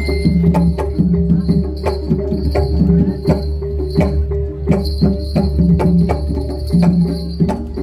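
Javanese gamelan music with a fast, steady run of drum strokes over repeating low pitched notes and a held tone.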